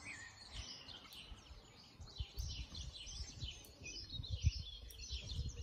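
Small birds chirping and trilling in many short calls. Soft low thumps come in from about two seconds in.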